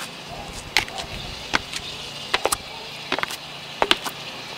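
Footsteps of sneakers climbing concrete steps: a series of short, sharp taps, roughly one or two a second, over a steady low hum.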